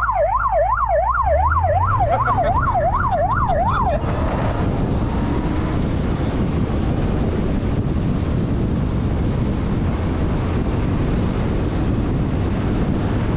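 Siren in a fast yelp, sweeping up and down about twice a second, that cuts off about four seconds in. Then steady wind rush on the microphone of a moving motorcycle.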